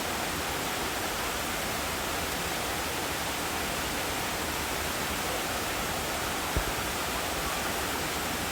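Steady rushing of a waterfall, with one brief low thump about six and a half seconds in.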